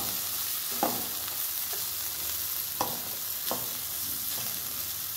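Chopped onion and ground spices sizzling in oil in a pan on a low flame while a metal spatula stirs and scrapes the pan, three scrapes standing out above the steady sizzle.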